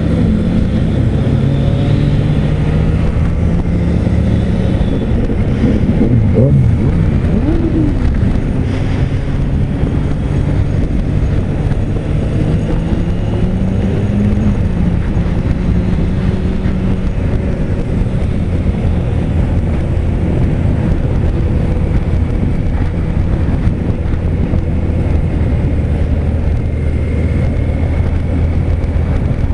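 Motorcycle engine running at cruising speed under road and wind noise, heard from the bike itself; the engine note wavers up and down briefly about six seconds in.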